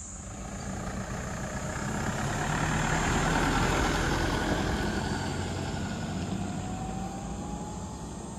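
SUV driving past on a dirt road, its engine and tyres on the gravel growing louder as it nears, loudest about three to four seconds in, then fading as it pulls away.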